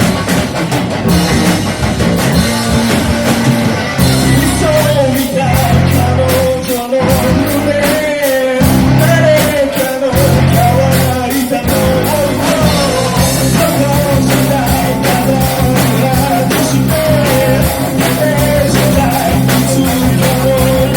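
Rock band playing live: drums, bass and electric guitar, with a wavering melodic lead line over them from about four seconds in. The bass and drums break off briefly twice, around seven and eight and a half seconds in.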